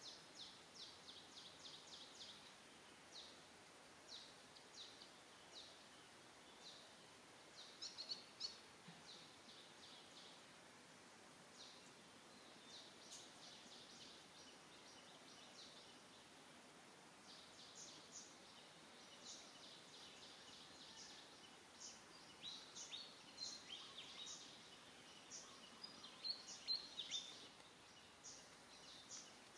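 Small birds chirping in quick runs of short, high chirps, several a second, over a faint hiss of outdoor background. The chirps are loudest about eight seconds in and again near the end.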